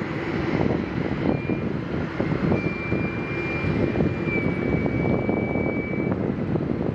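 Aircraft engine running: a steady low rumble with a thin high whine that comes in about a second in and stops about a second before the end.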